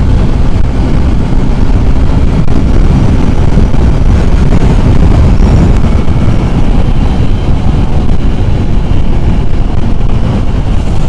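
Heavy wind blasting the microphone of a Yamaha FZ 2.0 motorcycle ridden at high speed, with the bike's single-cylinder engine running steadily underneath. The wind noise is loud and continuous.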